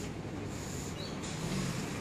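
Steady background noise of street traffic, with no distinct events.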